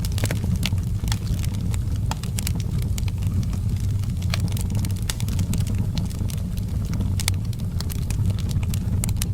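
Wood fire crackling in a fireplace: many irregular sharp snaps over a steady low rumble.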